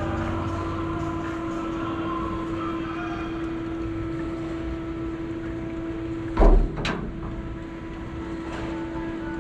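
Mill-chute ride boat drifting through its water channel, with a steady hum underneath. About six and a half seconds in come two loud knocks half a second apart.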